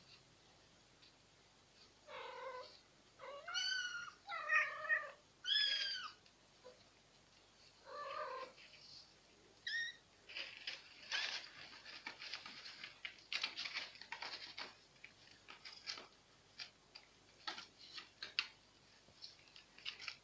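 A kitten mewing about six times in short, high calls, then a stretch of scratching and rustling in granular cat litter as a cat digs in the litter box.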